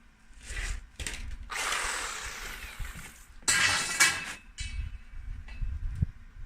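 Reciprocating saw cutting into steel box section in two short noisy bursts, with knocks and clatter of metal between them. The saw is making slow work of the cut.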